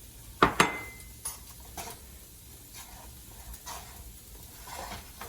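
A metal cooking utensil knocks twice against a pan, with a short metallic ring after the second knock. Several softer scrapes follow as fried rice is stirred in the pan.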